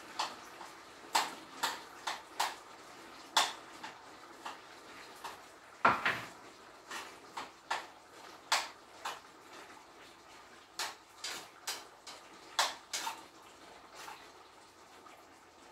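Cookware on a stove: scattered short clinks and knocks, irregular and about one or two a second, with one louder knock about six seconds in, over a faint steady hiss.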